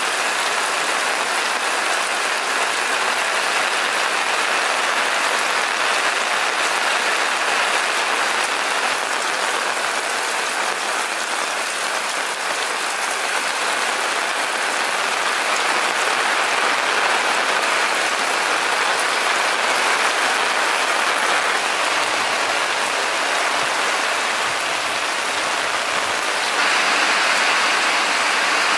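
Steady rain falling on hard surfaces, an even hiss that gets a little louder near the end.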